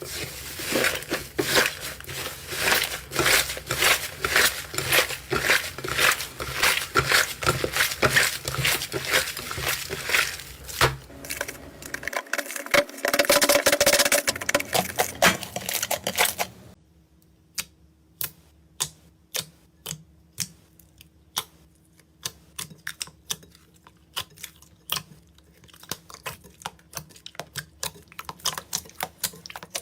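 Slime being worked by hand: a dense run of crackling pops and clicks, turning to a noisier tearing sound toward the middle. After an abrupt cut about two-thirds of the way through, a much quieter clip follows, with sparse sharp clicks and pops over a faint steady hum.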